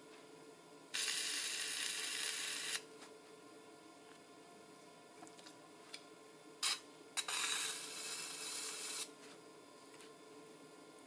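Electric pottery wheel humming steadily as it spins. Two loud bursts of hiss, about two seconds each, break in about a second in and again near the end, with a few light clicks between them.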